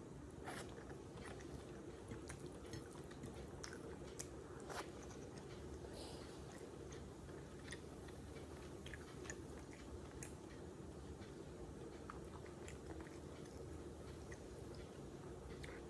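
Close-miked mouth sounds of eating goat meat and offal in curry with the fingers: chewing and biting, with many short, scattered wet clicks and smacks.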